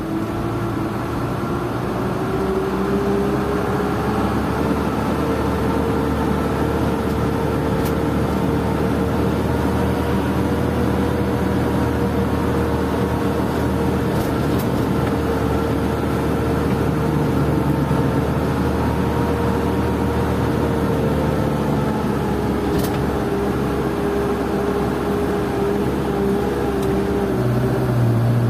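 Isuzu Elf NKR71 light truck's diesel engine running under way, heard from inside the cab together with road rumble. Its whine climbs over the first few seconds, holds steady, and eases down after about twenty seconds.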